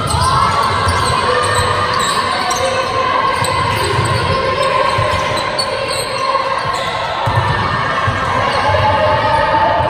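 Basketball game in play in a large echoing sports hall: a ball bouncing on the wooden court, trainers squeaking and players' footfalls, with occasional calls from players.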